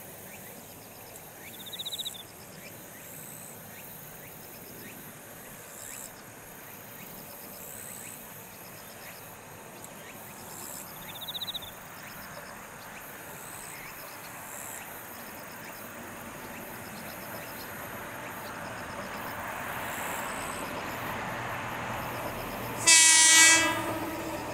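Ohmi Railway 300-series electric train approaching, its running noise slowly growing louder, then one short, loud horn blast about a second and a half before the end.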